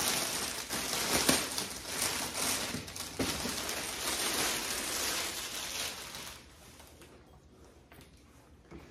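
Plastic packaging crinkling and rustling as the carrying case is handled and unwrapped, with a few small knocks; it dies down about six seconds in.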